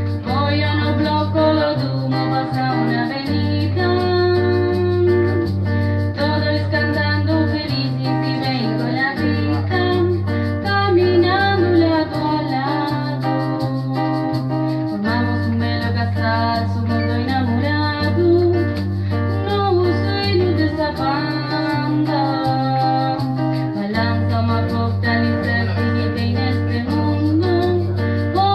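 Live acoustic music: piano accordion and acoustic guitar playing a song over a steady bass line, with a voice singing.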